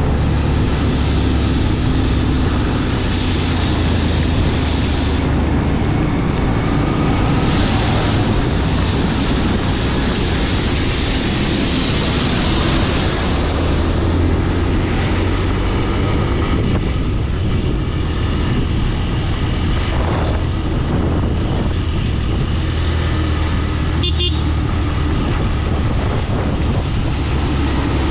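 Steady vehicle and road noise while travelling along a highway: a continuous low rumble with a broad hiss.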